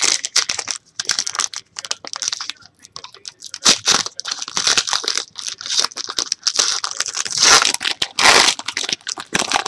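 Foil trading-card pack crinkling and being torn open by hand, with rapid irregular crackles and a few longer ripping stretches.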